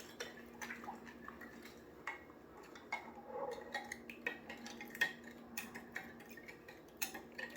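Metal spoon clicking and scraping against a glass bowl in scattered light clicks, stirring sliced cucumbers in a sugar and vinegar pickling mix. A faint steady hum runs underneath.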